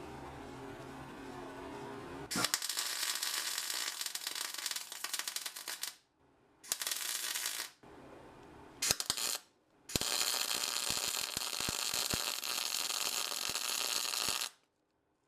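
Electric welder's arc crackling and spitting in four separate runs, each switched on and off abruptly, the longest about four and a half seconds near the end, while the steel torque box is welded in.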